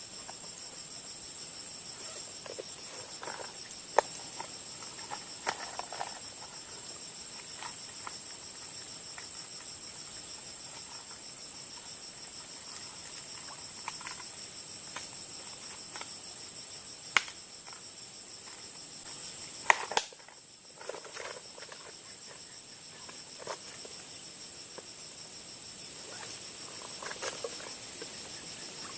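Steady, shrill chorus of insects holding two high tones without a break, with a few sharp clicks scattered through it, the loudest about two thirds of the way in.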